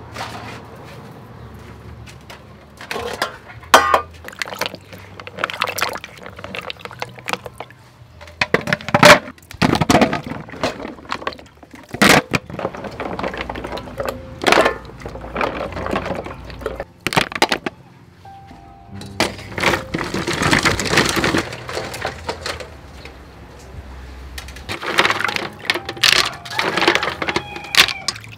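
Mud clam shells clacking and knocking together, with water sloshing, as the clams are rubbed clean by hand in a metal bowl of water, over soft background music.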